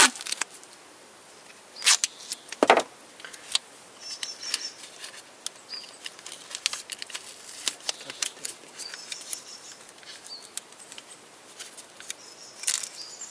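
Duct tape being handled and wrapped around a paper label on an engine wiring harness: light crinkling and sticky crackles, with a single knock almost three seconds in and a louder crackle near the end.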